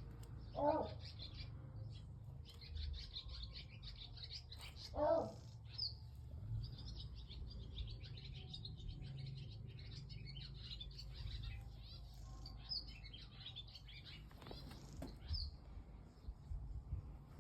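Small birds chirping and twittering continuously, with two louder, lower calls about a second in and about five seconds in, over a steady low rumble.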